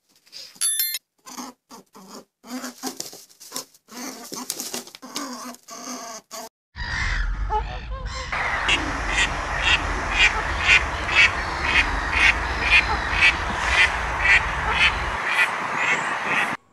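Animal calls from two recordings. First comes a run of short, separate calls. About seven seconds in, a new recording starts over a steady noisy background, with a call repeating about twice a second.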